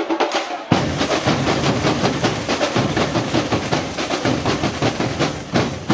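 Samba bateria drum corps playing: fast, driving snare-drum strokes over the deep beat of the surdo bass drums, which come in heavily just under a second in.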